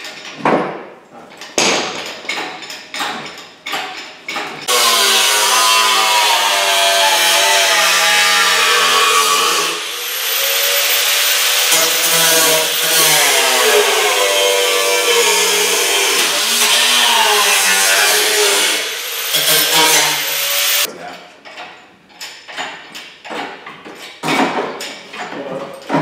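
Angle grinder cutting metal for about sixteen seconds, its pitch wavering as the disc bites. It eases off briefly partway through and spins back up. Metal clanks and knocks of hand tools come before and after the cut.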